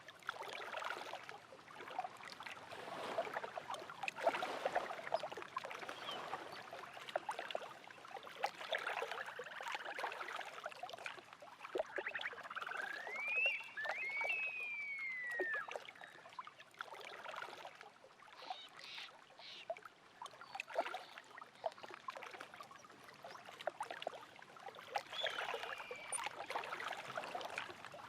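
Small waves lapping and splashing at a lake shore, a steady patter of little splashes. About halfway through, a bird gives a few sliding whistled calls that rise and then fall, and it calls once more near the end.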